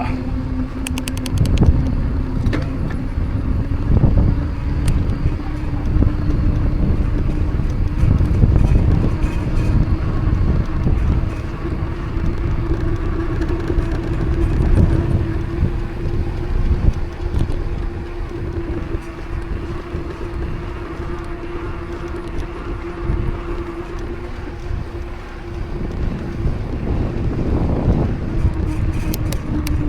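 Mountain bike rolling on pavement: a steady hum that drifts slightly in pitch, over low rumbling rolling and wind noise, with occasional knocks and rattles from bumps.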